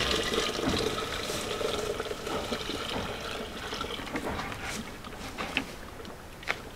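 Water poured from a bucket into a large aluminium pot of cañihua grain for washing: a steady splashing pour that gradually thins out, with a couple of short knocks near the end.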